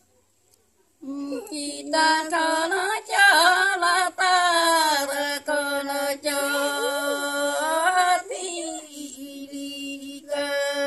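Women singing a Santali folk song unaccompanied, starting about a second in after a pause, with long held, wavering notes.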